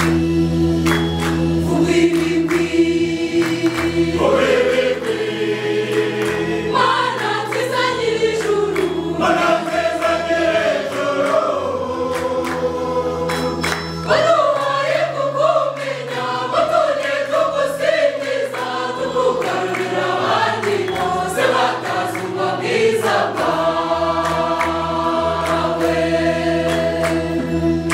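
Mixed church choir of women's and men's voices singing a hymn in parts, over sustained low bass notes and a light regular beat.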